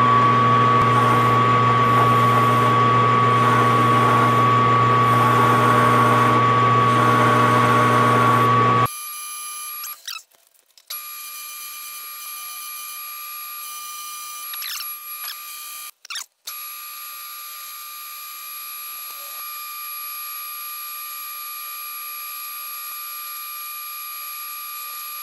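Metal lathe running while its tool takes a taper cut along a cast water pump pulley: a loud, steady running sound with a low hum and a high steady tone. About nine seconds in it drops suddenly to a much quieter, thinner steady running sound, broken twice by brief dropouts.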